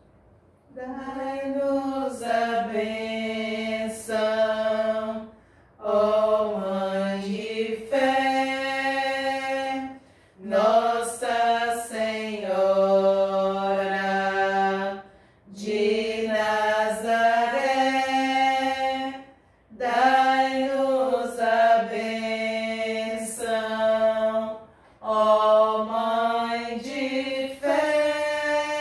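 A few women's voices singing a hymn together without accompaniment, in held phrases of a few seconds each with short breaths between them.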